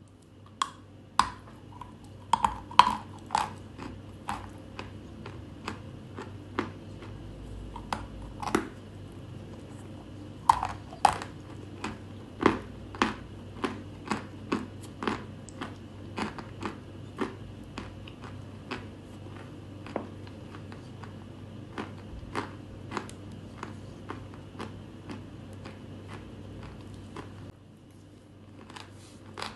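Close-miked crunching of edible chalk being bitten and chewed: a run of sharp, crisp crunches, about one or two a second, that stops near the end.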